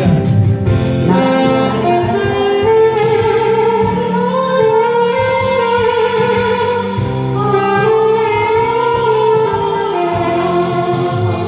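Instrumental break in a song's backing track: a saxophone carries the melody in long held, sliding notes over the band accompaniment.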